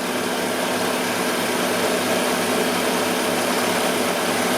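Car engine idling steadily with the air conditioning running, a constant hum under an even hiss of fan and engine-bay noise.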